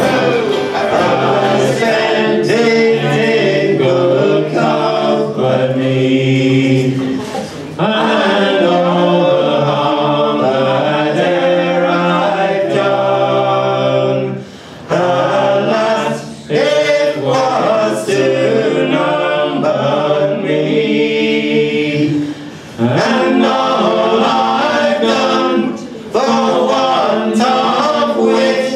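A folk band singing together in several-voice harmony, mostly unaccompanied, in phrases broken by short pauses.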